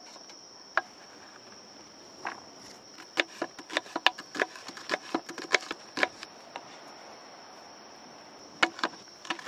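Kitchen knife cutting vegetables into strips on a cutting board: irregular sharp knocks, thickest between about three and six seconds in, with two more near the end. A steady high-pitched tone runs underneath.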